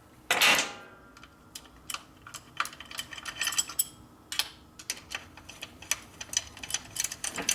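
Hand tools working on a motorcycle engine: a run of irregular metal clicks, taps and light rattles, with a louder rushing scrape about half a second in.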